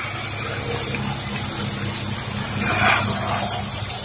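Pressure washer running, a steady engine hum under the constant hiss of the water jet spraying vinyl siding.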